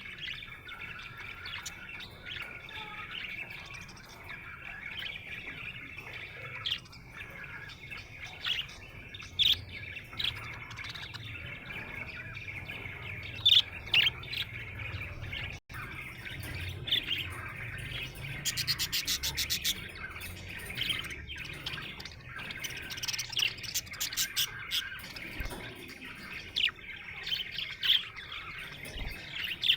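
Budgerigar warbling and chattering without a break, with sharp chirps scattered through it and a quick run of clicks about two-thirds of the way in. Chirping of this kind is the sound of a contented budgie.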